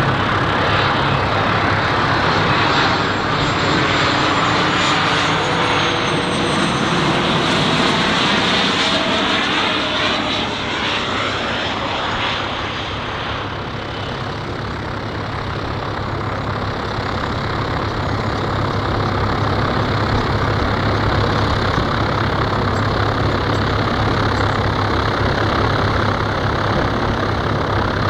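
Pilatus PC-24 business jet's twin Williams FJ44 turbofans running loud. A high engine whine falls in pitch over the first dozen seconds as the jet passes, then settles into a steady jet rumble.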